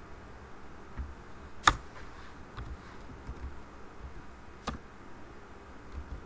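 Sparse computer keyboard keystrokes, with two sharp clicks about three seconds apart and a few fainter ticks, over a low steady background hum.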